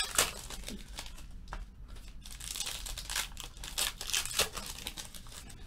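Foil trading-card pack wrappers being torn open and crinkled by hand, in a series of short irregular rips and rustles.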